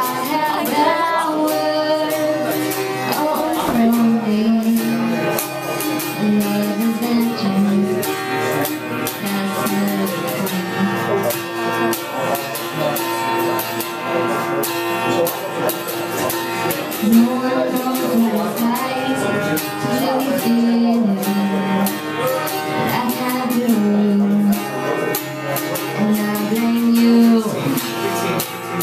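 A woman singing a slow melody, accompanied by a strummed acoustic guitar.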